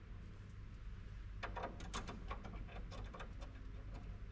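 Faint metallic clicks and taps of a steel bracing bar and its bolts being handled and set into place, a quick run of them about a second and a half in, over a low steady hum.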